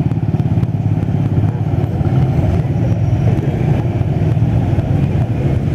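Steady rumble of street traffic, mostly motorcycles, running without a break.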